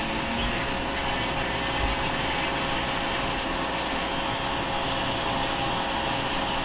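Vacuum running steadily through a Vac-U-Shield dust hood and hose, drawing dust in at the tip of a Foredom flex-shaft carving handpiece as its bur grinds wood. A constant hiss with a steady whine in it.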